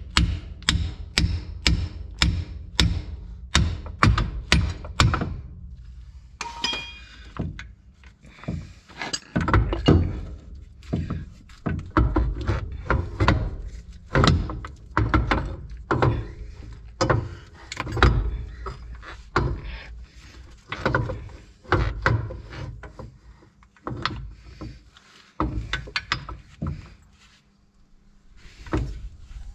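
Repeated hammer blows on steel: about two a second for the first five seconds, then irregular strikes with short pauses. They come as a front-suspension ball joint is being forced free with a puller.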